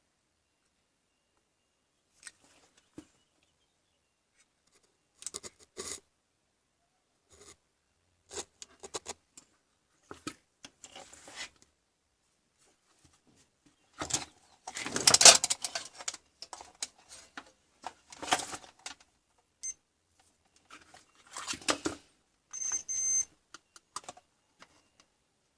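Intermittent clicks, scrapes and rustles of objects being handled, loudest in a burst about fifteen seconds in, with a brief high beep-like tone near the end.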